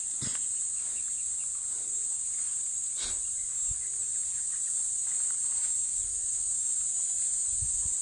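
Steady, high-pitched chorus of insects such as crickets, with a few soft footfalls on dry ground.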